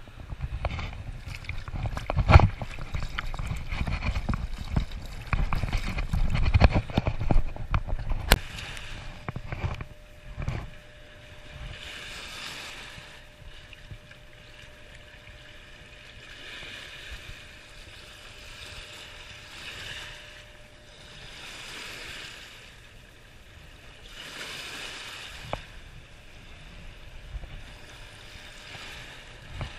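River water washing against a rocky shore, swelling every two or three seconds. Low rumbling and knocks on the microphone during the first several seconds.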